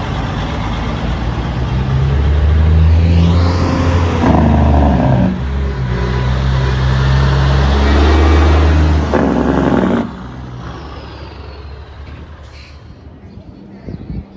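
Big-rig semi trucks with tall straight exhaust stacks passing close by, their diesel engines loud and deep with some rise and fall in pitch. The engine sound cuts off suddenly about ten seconds in, leaving quieter street noise.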